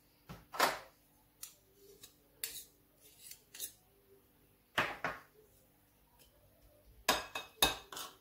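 Metal spoon scraping and clicking against a ceramic plate while mashing butter and baking soda into a paste. Scattered single strokes at first, then a quicker run of scrapes near the end.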